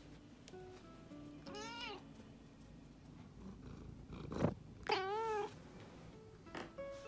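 Bengal cat meowing twice, a short wavering meow and then a louder, longer one. Just before the second meow comes a brief loud rushing thump as the cat's face brushes against the phone's microphone.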